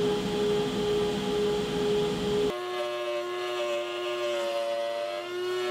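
Router in a router table running at high speed with a steady whine. About two and a half seconds in, the sound changes abruptly to the router cutting a board fed past the bit, its pitch a little lower and wavering under load.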